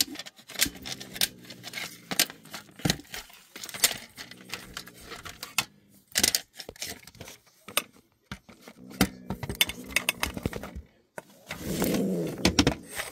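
Metal grabber pole clacking and rattling against shoes and clutter under a dresser while prodding an opossum: a run of sharp clicks and knocks. A low rasping sound comes in near the end.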